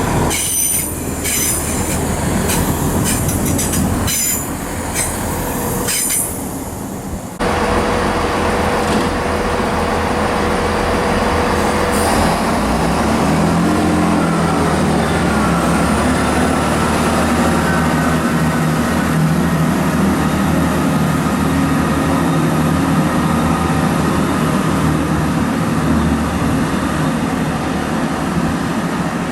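Passenger train wheels squealing and clattering over rail joints. About seven seconds in, the sound changes abruptly to a steady running rumble with a whine that rises in pitch, as of a train gathering speed.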